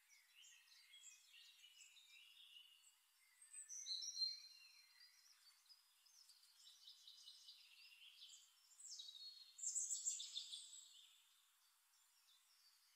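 Faint, high chirping of birds in short repeated calls and sliding notes, louder in two stretches about four seconds in and around ten seconds in.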